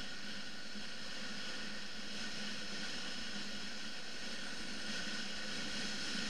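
Steady rush of wind and road noise from a BMW F 650 GS motorcycle riding at an even pace, with the engine as a low, unchanging drone underneath.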